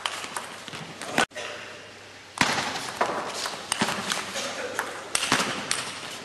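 Table tennis rally: the celluloid ball clicking off rubber-faced rackets and the table in quick succession, with some harder knocks from the heavier strokes, echoing in a large hall.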